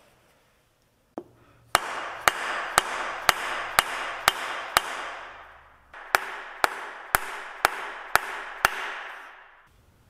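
Dead blow hammer striking the shaft of a rotary swing cylinder to drive it into a tight fit in its housing. There are thirteen blows, about two a second: seven, a short pause, then six more, each with a short hissing tail.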